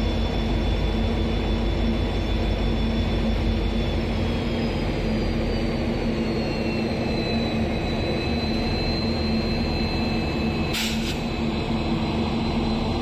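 WDP4B diesel-electric locomotive's 16-cylinder EMD two-stroke engine running steadily, with two high whining tones that slide down in pitch about halfway through. A single sharp knock comes near the end.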